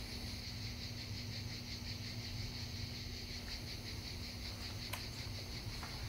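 Steady high-pitched insect chorus with a fast, even pulse, over a faint low hum of room tone; a single faint click about five seconds in.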